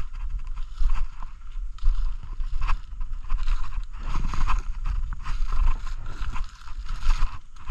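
Footsteps crunching and rustling through dry fallen leaf litter, in irregular steps, over a steady low rumble on the microphone.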